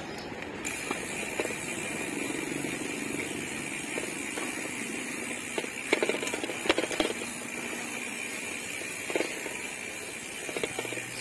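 Riding noise on a moving bicycle: steady wind and road rumble on the microphone, with a few sharp knocks and rattles around the middle and again near the end.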